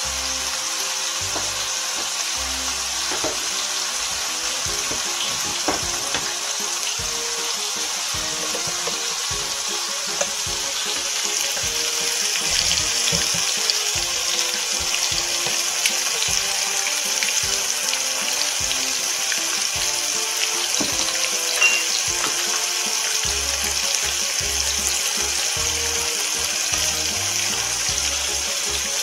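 Veal tafelspitz searing fat side down in a frying pan: a steady sizzle with scattered small crackles, a little louder from about twelve seconds in.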